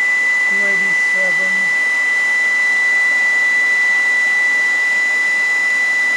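Small 2.5-amp vacuum cleaner running steadily on its high setting: a loud rush of air with a steady high-pitched motor whine.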